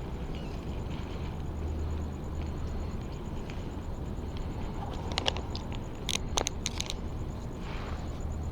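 Handling noises while tire sealant is squeezed from its bag through a hose into an e-bike tire's valve: a few short clicks and plastic scrapes, clustered past the middle, over a steady low hum.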